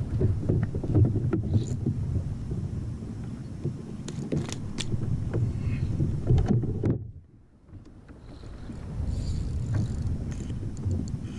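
Low rumbling wind and water noise on the microphone, with a few sharp knocks from handling on a plastic kayak. The sound drops away for about a second near the middle, then returns.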